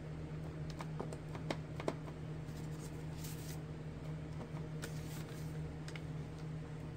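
Faint taps of a clear stamp on an acrylic block against an ink pad, a quick cluster of sharp clicks in the first two seconds, then soft rustles as the block is pressed onto a paper tag, over a steady low hum.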